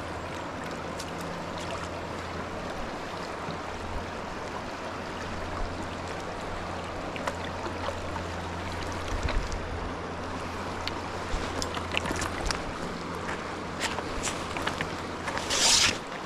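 Shallow river running over rocks: a steady rush of flowing water, with small splashes and ticks here and there and a brief louder hiss near the end.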